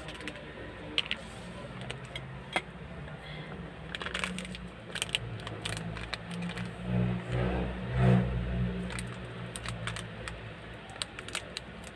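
Scattered small clicks and clinks as things are handled on a tabletop beside a mug. A low rumble swells and fades through the middle, loudest about eight seconds in.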